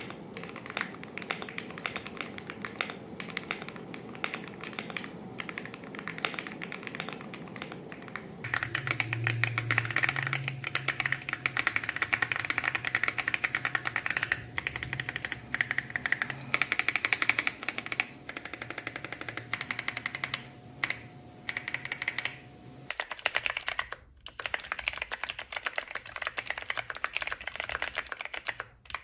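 Fast, continuous typing on mechanical keyboards, a run of keyboard sound tests. The board's sound changes abruptly about a third of the way in and again about three-quarters through. The middle stretch is louder and brighter, with a low hum beneath the clatter.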